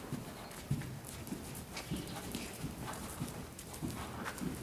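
A ridden horse's hooves thudding on sand arena footing in a steady rhythm, about two to three beats a second.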